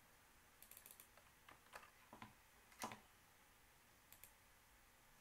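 Faint clicks of a computer mouse and keyboard: a quick run of clicks a little over half a second in, then several single clicks, the loudest near the middle, and a last pair about four seconds in.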